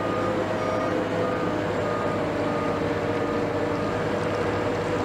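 A warning beeper sounds a regular run of short beeps, a little under two a second, over a steady low engine drone.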